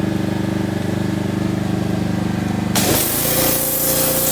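An engine running steadily. About three seconds in, the sound switches abruptly to a loud hissing spray over a lower hum.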